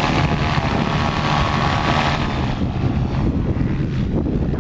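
Paramotor engine and propeller buzzing steadily as the powered paraglider flies past, the higher part of the sound fading a little after about two seconds.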